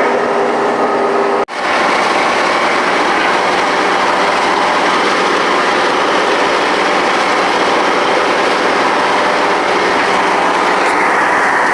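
John Deere 6600 combine running steadily, a loud mechanical din of engine hum and machinery clatter. It cuts out for an instant about a second and a half in, then carries on.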